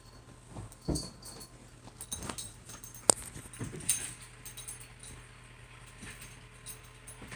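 Cats chasing a laser pointer: scattered soft knocks and movement sounds, with a sharp click about three seconds in.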